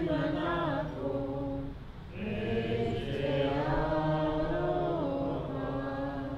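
A small group of voices singing together in long held notes that step up and down in pitch, with a short break about two seconds in before the song goes on.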